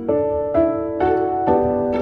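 Background music: a keyboard-like instrument striking soft notes about twice a second.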